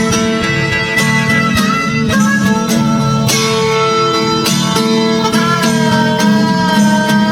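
Instrumental country-style music with plucked guitar and a fiddle melody that slides between notes.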